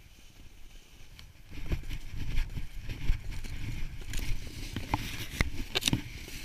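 Snowboard sliding and scraping over spring snow, with rough rumbling on the body-mounted camera's microphone; quiet at first, it gets louder about a second and a half in, with scattered sharp knocks and crackles later on.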